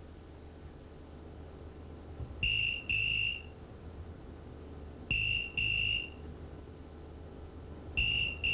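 Telephone ringing with a double-ring cadence: three pairs of short electronic rings, about three seconds apart.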